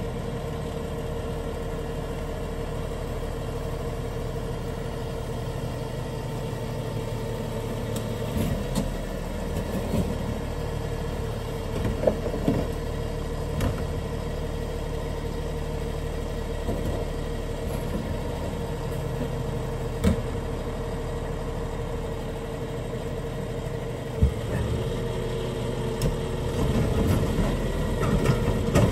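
Peterbilt garbage truck's diesel engine idling with a steady whine over it, broken by sharp bangs and clanks as a garbage cart is tipped into the hopper at the side lifter. The engine picks up near the end.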